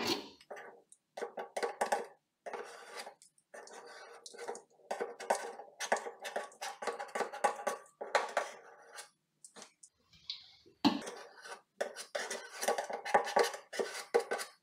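Hand tool scraping excess plumber's putty off the underside of a metal garbage disposal sink flange, in short irregular strokes with light metallic clinks.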